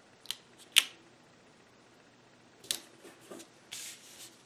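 Paper handling on a planner page: a few sharp clicks and taps, the loudest under a second in and another past halfway, as stickers are pressed down by hand, then a brief paper rustle near the end as the page is moved.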